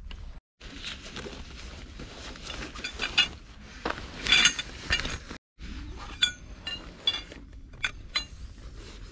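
A stuff sack rustles as tarp poles are pulled out of it. Then the DOD tarp pole sections clink and ring with sharp metallic ticks as they are handled and joined together.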